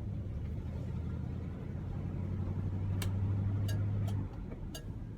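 1971 Oldsmobile Cutlass S's 350 V8 running as the car drives, heard from inside the cabin. Its low hum builds slightly and then drops off abruptly about four seconds in as the throttle eases, with a few short clicks near the end.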